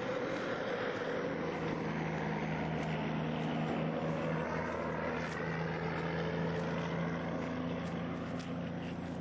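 An engine running steadily: an even drone with a constant-pitch hum that holds without revving through the whole stretch.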